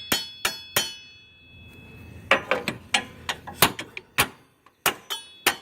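Small hammer tapping a loose metal guide pin on a lawn tractor's mower deck to seat it fully, about a dozen sharp ringing metal taps, bunched in the middle. The pin is the source of the deck's tinging noise.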